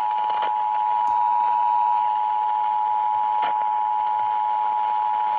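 Emergency Alert System two-tone attention signal: 853 Hz and 960 Hz sounded together as one steady tone, heralding a Child Abduction Emergency (Amber Alert) message. Faint radio audio lies beneath it.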